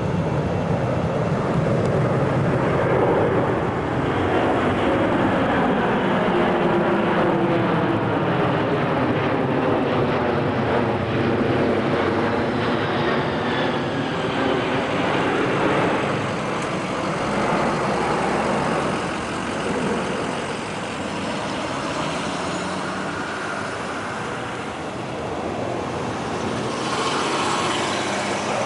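Large four-engine jet transport plane flying low overhead, its engine noise loud and steady, with the pitch sliding down as it passes. Near the end the sound changes to motorcycles on a road.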